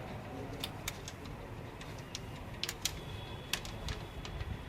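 Scattered sharp clicks and taps of small hard parts being handled during printer reassembly, irregular and a dozen or so in all, over a low steady background rumble.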